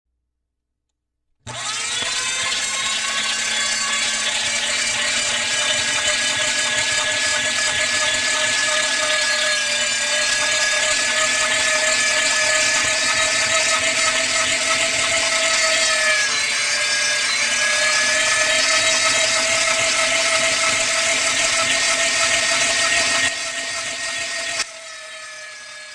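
Electric meat grinder's motor starting up and running with a steady whine. Its pitch dips briefly twice, as if under load, before it drops off and stops near the end.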